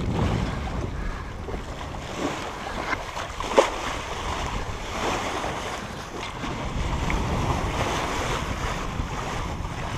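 Sea water rushing and washing along the bow of a Hallberg-Rassy 54 sailing yacht under way, with wind buffeting the microphone as a steady low rumble. A single short knock about three and a half seconds in.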